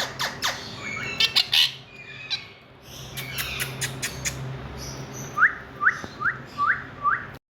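Indian ringneck parakeet calling: a stretch of sharp squawks and chirps over a low steady hum, then about two seconds from the end a run of five short, evenly spaced chirps that each rise in pitch. The sound cuts off suddenly after the last chirp.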